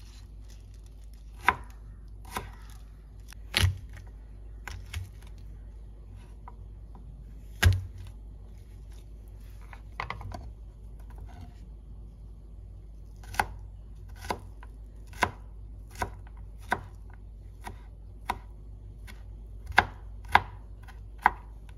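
Chef's knife chopping leafy greens and garlic cloves on a cutting board: sharp, irregular knocks of the blade on the board, with two heavier thuds in the first eight seconds, then steadier strokes about one a second in the second half.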